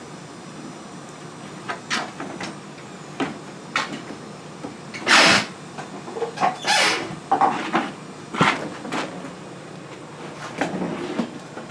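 Scattered knocks and clicks of hands working at a refrigerator cabinet, with two short rasping bursts about five and seven seconds in as leftover packing tape is picked and peeled off.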